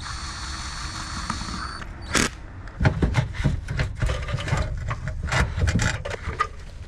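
A cordless drill/driver whirs steadily for about two seconds, turning the hose-clamp screw on a cone air filter. After that come a sharp click and a run of clanks, knocks and scrapes as the intake parts are handled.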